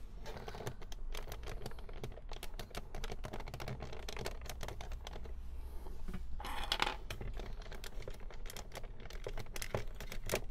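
Hard plastic parts of a Nerf blaster clicking, knocking and rattling as they are handled and worked apart by hand, with a longer, noisier stretch about six and a half seconds in.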